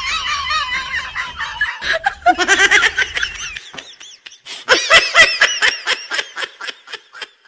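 High-pitched laughter in quick ha-ha pulses, in two runs; the second run is louder, starts about five seconds in and tails off.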